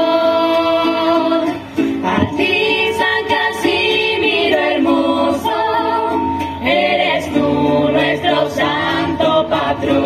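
A small mixed group of voices singing a devotional song in harmony, with long held notes, accompanied by a strummed Venezuelan cuatro.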